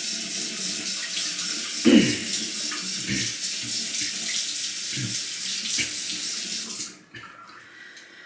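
Bathroom tap running into a sink, with a few short thuds, then shut off about seven seconds in.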